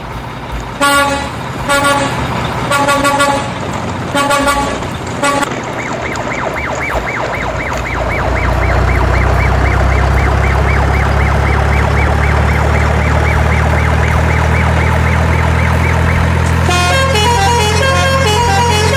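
Truck horn sounding in about five short toots over the first five seconds, then a truck engine running steadily, growing louder about eight seconds in; music starts near the end.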